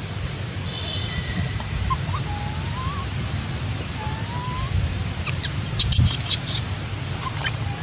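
Short rising whistle-like animal calls, three of them in the first five seconds, over a steady low rumble; a quick run of sharp high chirps or clicks comes about six seconds in.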